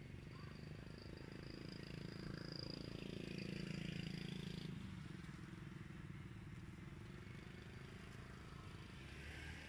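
A motor vehicle's engine passing, growing louder over the first few seconds and then fading, with a steady high whine that stops abruptly about halfway through.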